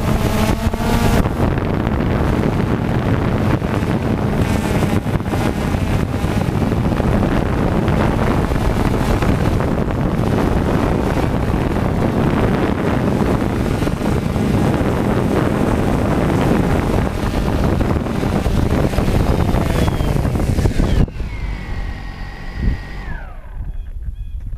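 Quadcopter's electric motors and propellers running, with the rotor wash buffeting the GoPro's microphone. About 21 seconds in, the noise cuts off and the motors spin down with a falling whine: the motors are stopped after landing.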